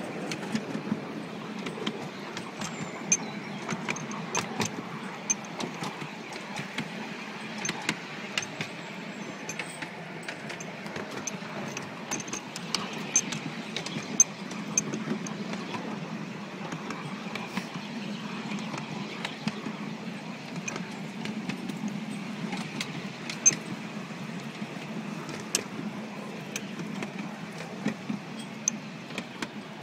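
Miniature railway train running, heard from on board: a steady rumble of the moving carriage with frequent, irregular clicks and rattles from the wheels and coupling gear.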